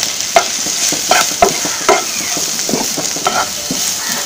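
Onions and green chillies frying in mustard oil with a steady sizzle, while a wooden spatula stirs and scrapes across the wok in quick, irregular strokes.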